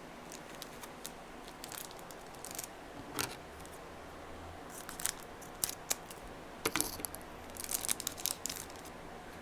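Crinkling and tearing of trading-card packaging being opened by hand: scattered crackles and short rustles, coming thicker and louder in the second half.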